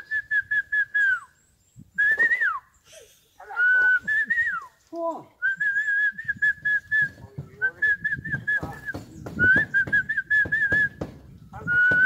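A man whistling a bird-like lure call to draw wild varied tits to his outstretched palm: a string of short, high, warbling trilled phrases held on one pitch, some ending in a quick downward slide, with short pauses between them.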